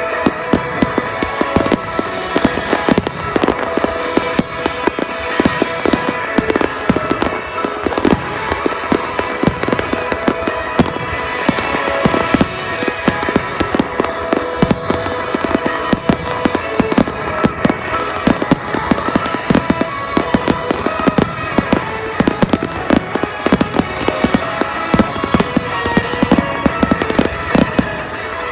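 Fireworks display: a dense, continuous run of rapid bangs and crackles, with music playing under it.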